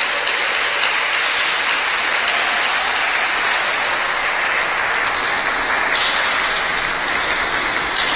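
Audience applauding, a steady even clapping, with one sharp knock near the end.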